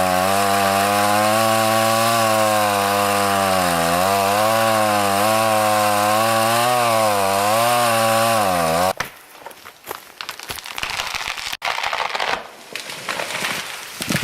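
Chainsaw cutting through a tree trunk, its engine pitch dipping and recovering under load, then stopping suddenly about nine seconds in. The felled tree then comes down with several seconds of crackling and rustling.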